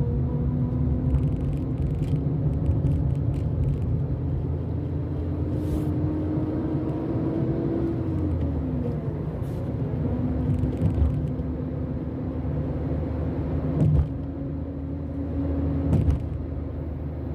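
Car engine and road rumble heard from inside a moving car. The engine hum climbs slowly, drops about eight seconds in, then carries on steadily. Two short thumps about two seconds apart near the end.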